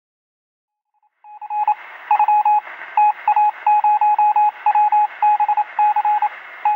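Morse code beeps: one steady tone keyed on and off in short and long beeps over a hiss of radio static, starting a little over a second in.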